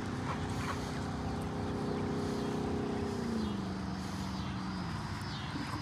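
Power drill running with a 1/2 inch paddle bit boring into cedar wood. Its motor hum is steady at first, then drops in pitch about three seconds in and again a little later as the bit bites and the drill slows under load.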